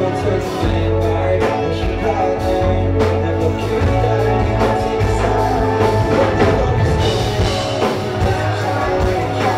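Live band music with a steady beat: drums, a heavy bass line and guitar in a rock style.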